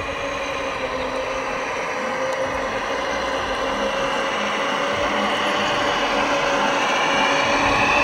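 Tamiya RC Freightliner Cascadia truck's electric motor and gearbox whining steadily as it rolls over gravel, growing louder as it drives closer.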